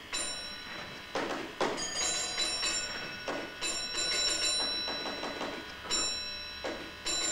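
Signal box telephone bell ringing in repeated bursts of uneven length: a train driver calling in from the lineside phone. A few clunks sound between the rings.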